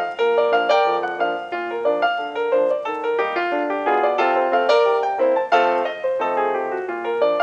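Piano music accompanying a silent film: a steady run of struck melody notes over chords.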